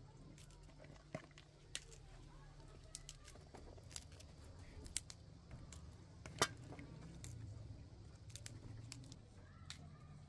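Fresh cauliflower being broken apart by hand over a metal tray: scattered crisp snaps and clicks as florets are pulled off and pieces drop onto the tray, the sharpest about six seconds in.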